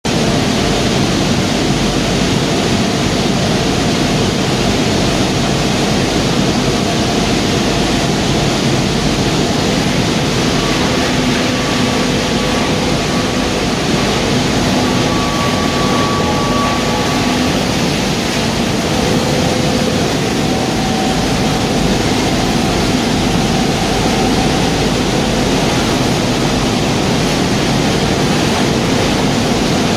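Waste-tire shredding line machinery running: a loud, steady mechanical noise from the tire shredder, its motors and conveyors, with faint steady hums drifting in and out.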